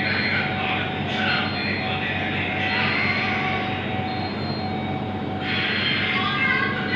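CPAP machine running with a steady rushing hum, over electronic beeps that repeat in a regular on-off pattern.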